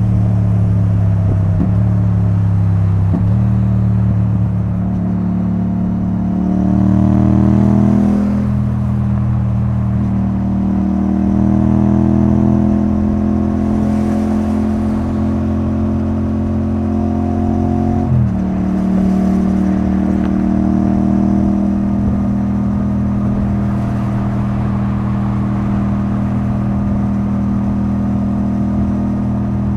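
Yamaha XSR700's CP2 parallel-twin engine running through a debaffled Akrapovic titanium exhaust at freeway speed. The pitch rises under acceleration about six to eight seconds in, climbs slowly, then drops suddenly about eighteen seconds in and holds steady after.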